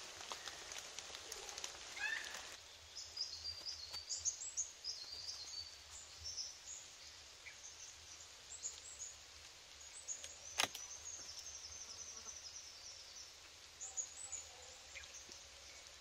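Birds chirping, many short high calls through most of the stretch, with one sharp knock about ten seconds in.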